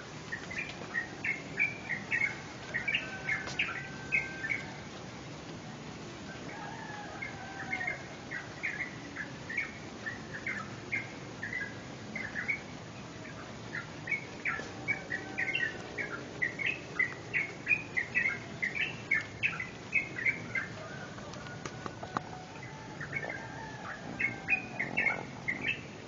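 Songbirds in a dawn chorus: four phrases of quick, high chirping notes with short pauses between them.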